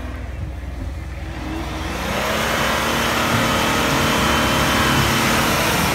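Nissan Patrol Y60 4x4 engine revving hard under load as it climbs a snowy slope, rising in pitch and getting much louder about two seconds in as it passes close by.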